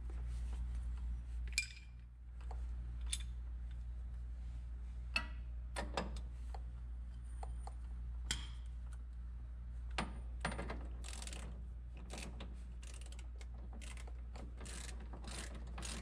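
Ratchet wrench clicking in short strokes as a nut is run down an old bolt to press new steering idler arm bushings into place, with scattered metallic clicks and clinks. The clicks come more regularly near the end, about two a second, over a steady low hum.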